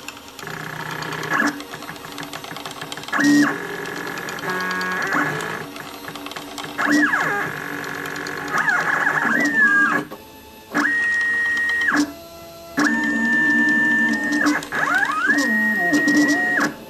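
Stepper motors of a homemade Solsylva 13x13 CNC driving its axes as a pen plots a drawing. They make a whining tone that jumps in pitch and glides up and down as the axes start, stop and change direction, with two brief pauses about two thirds of the way in.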